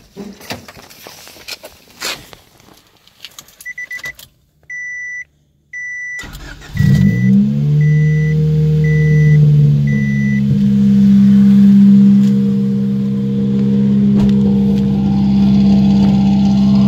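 Knocks and clicks, then a car's warning chime beeping steadily. About six seconds in, the 1994 Honda Civic's stock D15 16-valve four-cylinder cranks briefly, catches and settles into a loud, steady idle. It idles through a header and straight pipe with no catalytic converter, while the chime keeps beeping for a few more seconds.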